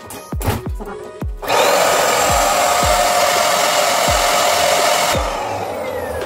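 Handheld vacuum cleaner switched on about a second and a half in, running steadily for three and a half seconds as it sucks the air out of a vacuum storage bag, then switched off with a falling whine as the motor winds down. Background music with a steady beat plays underneath.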